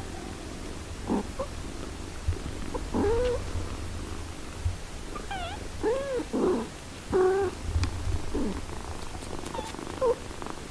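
Six-day-old kittens giving a series of short squeaky mews while nursing, over the low steady purring of the mother cat.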